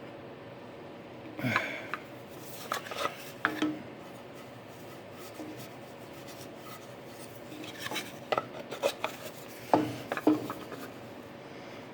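Scattered light knocks, clicks and rubbing of wooden box parts and tools being handled on a workbench while a paper towel is fitted into the back of a piece, with a cluster of knocks about two-thirds of the way through.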